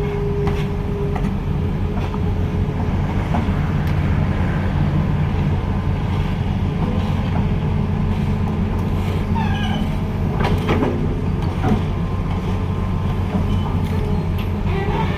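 A heavy vehicle's engine running steadily with a deep, even hum, with a few knocks and rattles a little over two-thirds of the way through.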